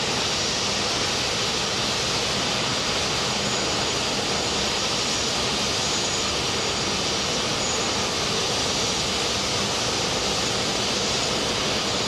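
Airbus A380 jet engines running at taxi power: a steady rushing jet noise that holds one level throughout.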